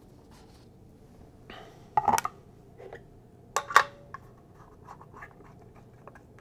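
A vinyl record and a record clamp are set down on a Michell Orbe turntable's platter and spindle, with a few short clacks around two seconds and again near four seconds in. Light scraping ticks follow as the clamp is turned down onto the record.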